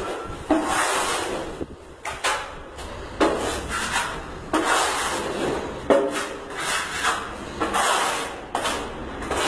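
Plastering trowel scraping wet skim-coat finishing plaster (calfinagem) across a wall in repeated rasping strokes, about one a second.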